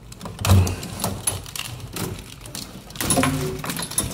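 A custom wiring harness, with its plastic fuse and relay boxes and corrugated plastic conduit, rattling and clattering as it is pulled by hand off a car's firewall. There is a heavy thump about half a second in and another burst of clatter about three seconds in.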